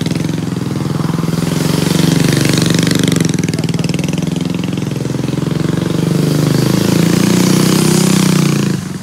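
DTV Shredder's 250 cc engine running under throttle as the tracked machine is ridden on ice. The engine note rises and falls with the throttle and drops off near the end.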